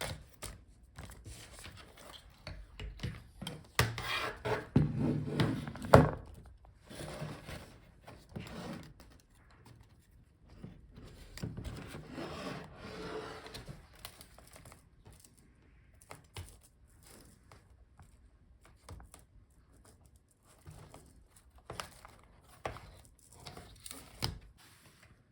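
Laptop parts being handled and separated: plastic and metal scraping and rubbing, with scattered clicks and knocks and one sharp knock about six seconds in.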